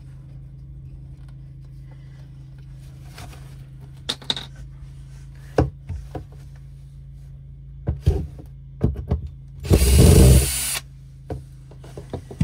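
A glued-on RV window curtain being pried and pulled off by hand: scattered knocks and clunks against the window frame, then about ten seconds in a loud rough burst lasting about a second as it comes away. A steady low hum runs underneath.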